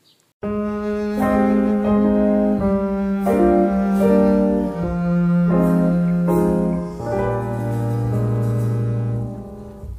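Background piano music, starting about half a second in after a brief silence.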